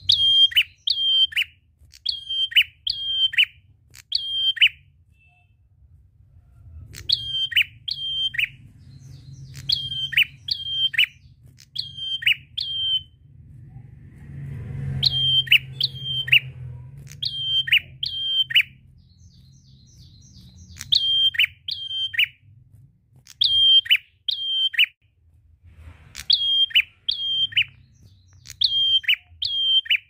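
A caged prenjak singing loud, sharp chirps in quick pairs and triples. Each chirp is a high note that drops steeply, and the bursts repeat every couple of seconds with a short break midway.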